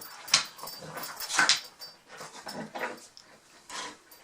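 Boxer dog mouthing and chewing a squeaky toy frog, trying to make it squeak: a few short noisy bursts, the loudest about a second and a half in.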